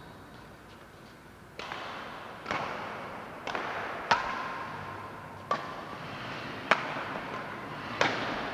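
Badminton rackets striking a shuttlecock in a rally, about seven sharp cracks roughly a second apart, each with a short echo off the hall, the loudest from the near-court players.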